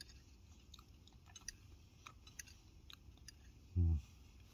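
A person chewing a mouthful of soft haggis and mashed tatties, with faint wet mouth clicks. A short low hum of the voice, like an 'mm', comes near the end.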